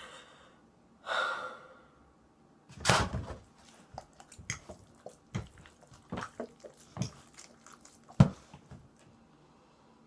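Close-miked mukbang eating sounds: a loud noisy burst about three seconds in, then a run of wet chewing and mouth clicks. One sharp, louder click comes just after eight seconds.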